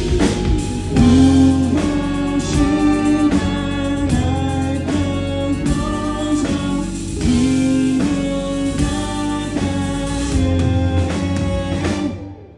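Live rock band playing a song, singing over electric guitar, bass and drum kit, with a steady beat. Near the end the music drops away abruptly into a brief break.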